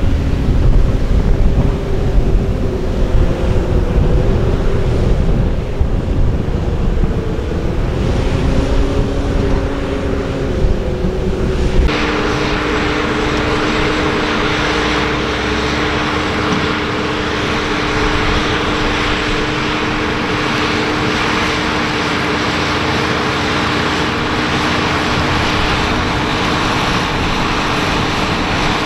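John Deere 7R 330 tractor's six-cylinder diesel running steadily under load while pulling a Köckerling Quadro cultivator, with a droning engine note. For the first part, wind buffets the microphone with a heavy low rumble. About twelve seconds in, the sound changes abruptly to a steadier drone with more hiss.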